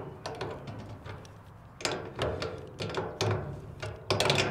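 An adjustable wrench clinks and knocks against the axle bolt and nut as it is tightened. The clinks come at irregular moments, over soft background music.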